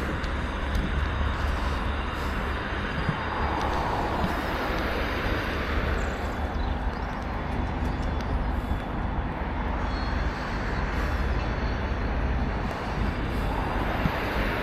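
Road traffic: a steady rumble of vehicles going by, swelling as a car passes about four seconds in and again near the end.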